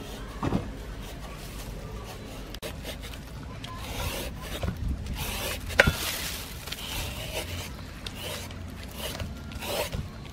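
Peeled green papaya being shredded with a hand-held julienne peeler: repeated rasping, scraping strokes as the blade cuts strands from the fruit, with one sharp click about halfway through.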